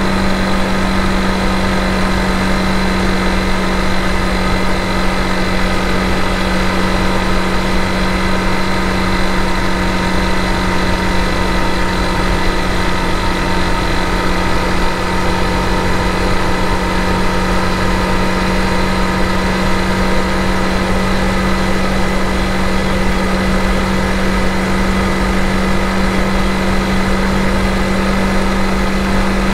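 Honda CRF250 Rally's single-cylinder engine running at a steady cruising speed, its pitch holding constant with no shifts or revving.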